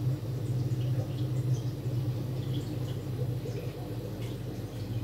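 Steady low electric hum of running aquarium equipment, with faint bubbling and dripping from air-driven sponge filters and an airstone in the tanks.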